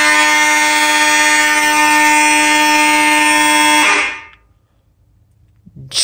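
Fire alarm horns, a vibratone horn and an electromechanical horn together, sounding a steady, continuous buzzing tone, very loud. They cut off suddenly about four seconds in.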